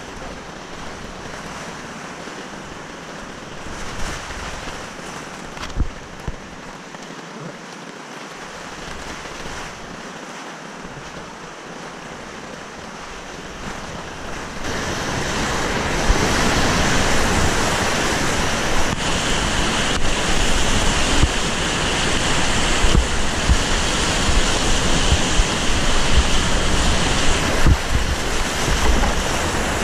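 Whitewater rushing around a small paddled boat, heard from close to the water surface, with a few low knocks in the first half. About halfway through the rush swells much louder as the boat runs into a rapid and waves splash over the bow.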